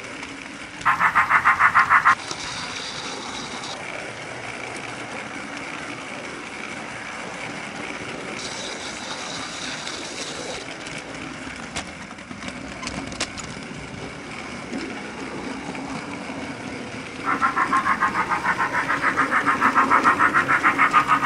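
Built-in DC sound chip of an HO scale Thomas model locomotive playing a steam engine's chuffing: rapid, even chuffs at about four a second. They come briefly about a second in, then give way to a quieter stretch with two short hisses, and start again near the end, growing louder.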